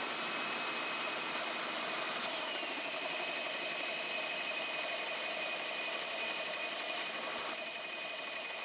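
Two drill presses running bi-metal hole saws through metal plate, giving a steady grinding cutting noise with a high whine. A second whine slides down and settles about two seconds in. The sound thins a little near the end as the first saw completes its hole.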